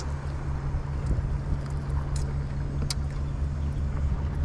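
A motor running steadily with a low, even drone, and a couple of short sharp clicks about two and three seconds in.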